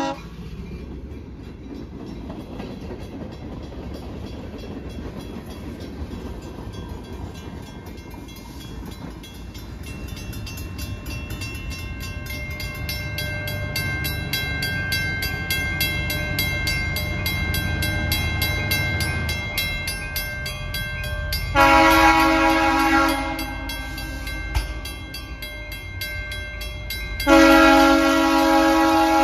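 Approaching EMD SW8m switcher locomotive: the diesel engine's rumble slowly grows louder as it nears. Then it sounds two long horn blasts, about six seconds apart, the second near the end.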